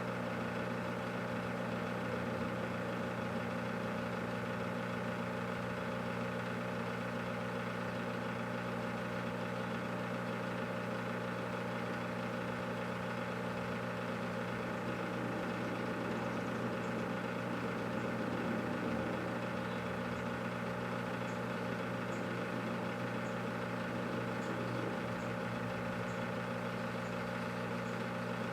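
Microwave oven running with a watermelon inside: a steady electrical hum with its fan. Faint ticks come about once a second in the second half.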